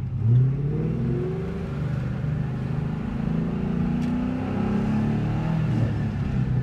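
Ford Mustang Mach 1's V8 engine accelerating, heard from inside the cabin, its note climbing in pitch a few times as it pulls through the gears.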